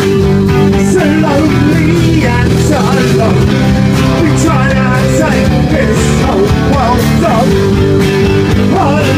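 Rock band playing live: electric guitars, keyboard and drums with a sung vocal over them, loud and steady.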